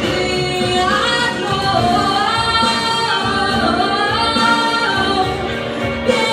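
A female singer holding and bending long notes with no clear words, over a steady musical accompaniment, in a jazz-style vocal song performance.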